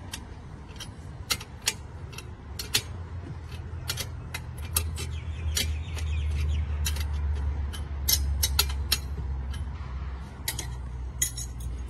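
Metal parts of a band saw blade sharpener clinking and clicking as its telescopic outrigger arms are handled and fitted on the steel base: many sharp, irregular clicks. A low rumble underneath grows louder through the middle.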